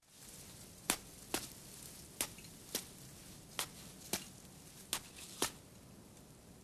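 About eight sharp, short taps, falling in loose pairs roughly a second and a half apart, over a faint steady hiss.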